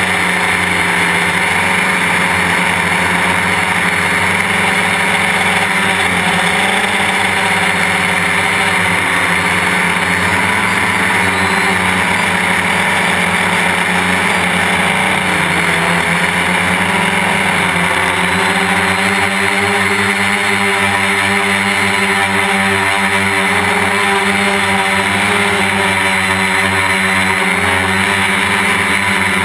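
Quadcopter's electric brushless motors and propellers running in flight, a steady multi-tone buzz heard close up from a camera on the airframe. About halfway through, the pitches shift as the motor speeds change, and after that they stand out more clearly.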